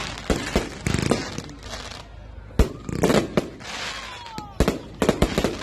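Fireworks going off: a string of sharp bangs in quick clusters, with crackling between them.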